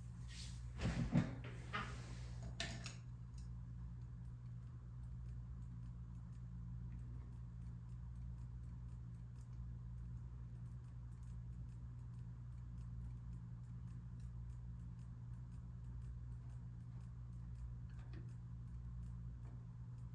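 A few knocks and cloth rustles in the first three seconds, as someone moves right up against the microphone, then a quiet room with a steady low hum and faint, regular ticking.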